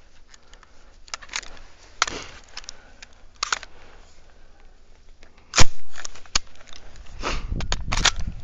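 Airsoft guns during play: scattered sharp clicks and cracks, one loud crack about five and a half seconds in, then a quicker run of cracks near the end.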